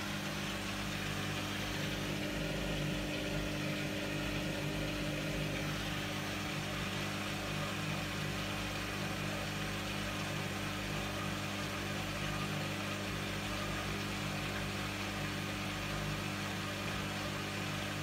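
Hoover front-loading washing machine running steadily, its drum motor humming as the drum turns wet laundry at low speed without getting up to spin speed: the load is unbalanced, which holds the final spin back.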